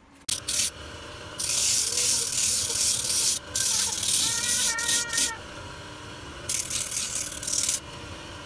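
Bench sanding drum spinning on its motor, with a shoe sole's edge pressed against it in several strokes, each a loud gritty hiss over the steady motor hum. A brief squeal sounds about four to five seconds in.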